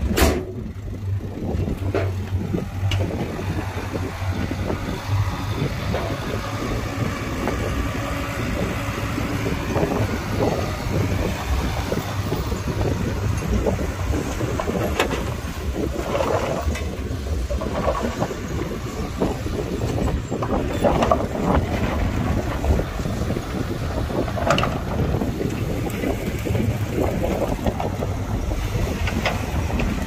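Heavy diesel earthmoving machinery running steadily, with a sharp click right at the start and scattered clanks and scrapes of the work through the rest.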